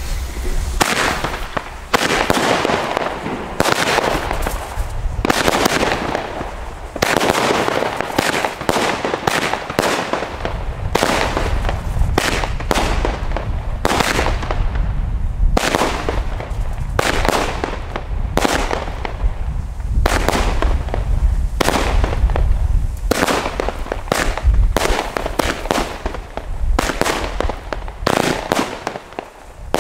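TNT Pyro Arctic Horizon fireworks battery, 25 shots in 22 mm calibre, firing shot after shot, roughly one a second, with the bursts and crackle of the effects in the air.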